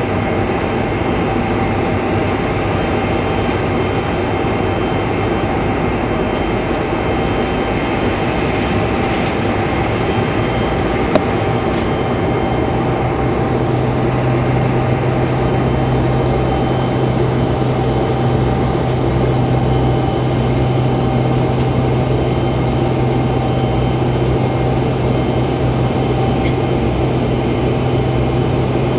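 Steady cabin noise inside a Boeing 747-400 on the ground before the takeoff roll: its Rolls-Royce RB211 engines and air conditioning running, with a few held tones over the hiss. A low hum grows stronger about halfway through.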